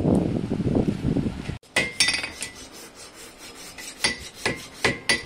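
A low rumbling noise for the first second and a half, then a farrier's steel tools striking metal at a horse's shod hoof: a series of short, ringing metallic clinks, coming faster near the end.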